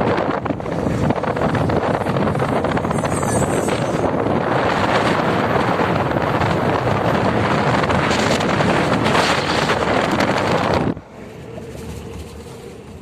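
Gusty wind blowing hard across the microphone, a loud rushing noise that drops away sharply about eleven seconds in.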